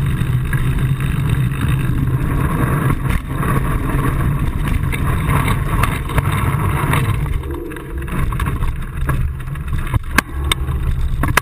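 Steady rumble of a bicycle being ridden, heard through a camera mounted on the frame: tyre and frame vibration noise with wind on the microphone. A few sharp clicks or knocks come near the end.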